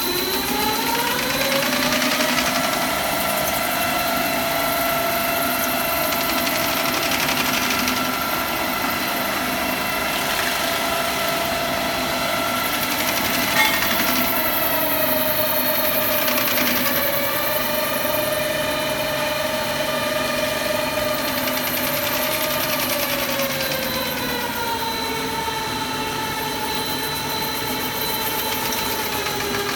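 Ride-on concrete floor grinder's electric motors running with a steady whine; the pitch rises over the first couple of seconds as they speed up, holds, then drops somewhat around twenty-five seconds in. One brief sharp knock about halfway through.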